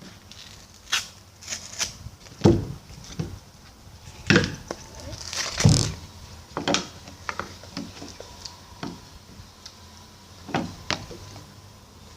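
Irregular knocks and clatter of objects being handled on a hard surface, with three louder thumps in the first half and two more knocks near the end.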